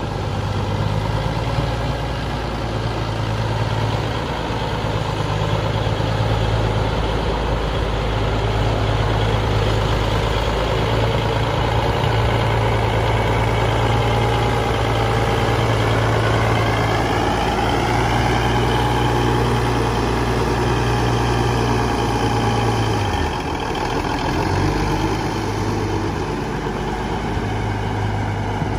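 Cummins diesel of a 1980 Versatile 875 four-wheel-drive tractor running as the tractor moves slowly, a steady low drone. A little past halfway a whine rises in pitch, and about three-quarters through the engine note dips briefly before picking up again.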